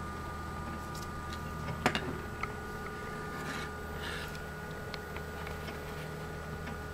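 A kitten's paws tapping and patting at a computer monitor screen: a few light taps, the sharpest about two seconds in, and brief rustling of movement a little later, over a steady electrical hum.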